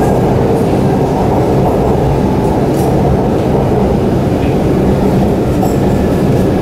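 Metro train running at speed, heard from inside the passenger car: a steady, loud running noise of wheels on rail, with a few faint clicks.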